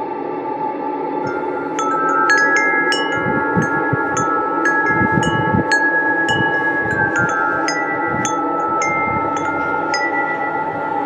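Wind chimes tinkling in an irregular scatter of ringing high notes, starting about two seconds in, over a steady ambient drone.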